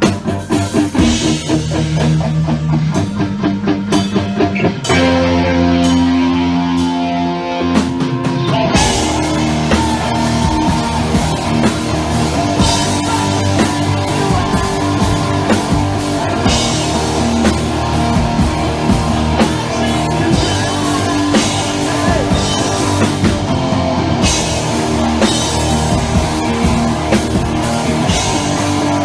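Rock band playing live on stage, with drum kit and electric guitars. It opens with short chopped chords and then holds sustained chords for a few seconds. The full band kicks in about nine seconds in.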